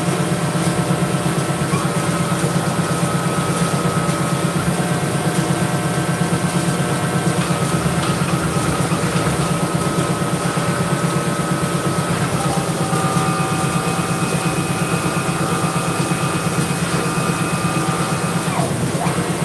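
Hydraulic press's motor and pump running under load as the ram presses a leaf-spring bushing: a steady pulsing hum with a whine that steps to new pitches as the lever is worked, then glides down near the end as the load comes off.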